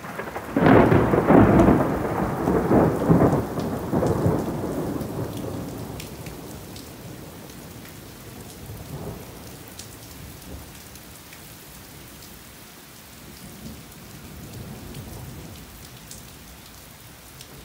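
Thunder from a lightning strike about 750 m away: a loud crack about half a second in, then heavy rumbling with several peaks over the next few seconds that fades out, and a smaller rumble near nine seconds. Steady rain underneath.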